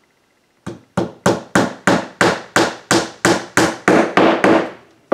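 Hammer driving a nail into a wooden birdhouse's half-inch base: about a dozen quick, even strikes at roughly three a second, starting about a second in.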